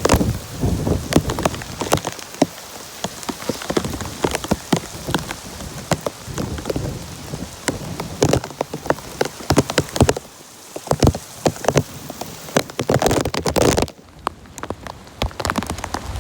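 Heavy rain falling, with many individual drops splattering loudly close by. A low rumble of thunder dies away over the first couple of seconds, and the rain eases a little near the end.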